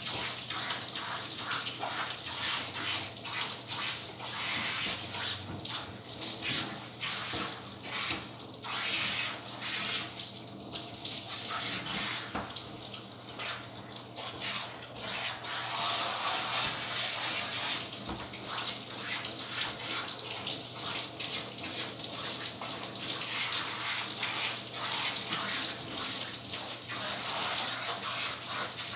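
Handheld grooming-tub sprayer running, water spraying onto a standard poodle's coat to rinse her, a steady hiss that swells and dips as the spray moves over the dog and tub.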